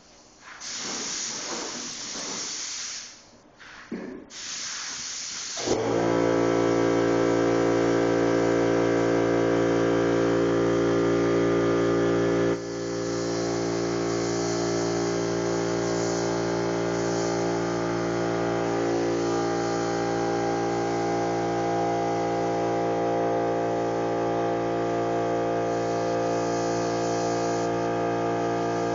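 Air-fed paint spray gun hissing in two short spells as it coats a car bumper cover. About six seconds in, a motor starts and runs on with a loud, steady hum, while the spray gun keeps hissing over it.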